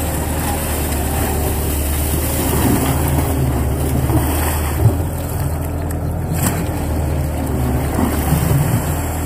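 Crawler excavator's diesel engine running steadily while the machine works, with a single knock a little under five seconds in.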